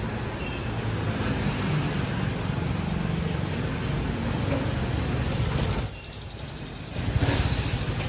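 Steady road-traffic noise and street ambience with a low rumble. It dips for about a second around six seconds in, then comes back louder.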